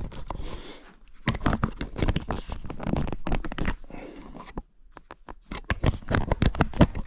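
Handling noise from the camera being picked up and repositioned: scraping, rubbing and clicks against the microphone, in two spells with a short lull about four and a half seconds in.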